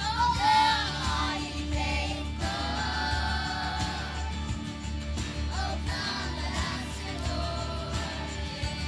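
A song with a sung vocal line over a steady instrumental backing.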